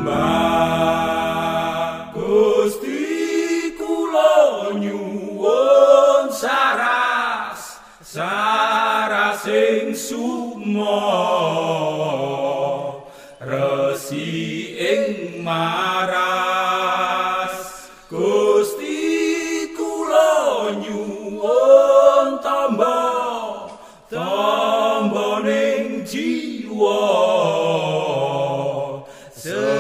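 A voice singing a devotional prayer song with Indonesian lyrics, in melodic phrases about two seconds long with short breaks between them.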